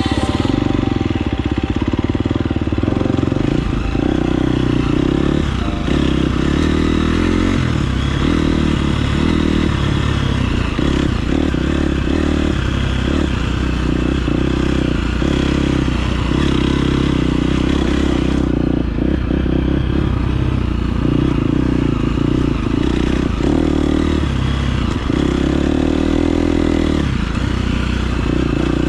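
KTM 350 SX-F motocross bike's single-cylinder four-stroke engine running, its pitch rising and falling as the throttle is opened and closed.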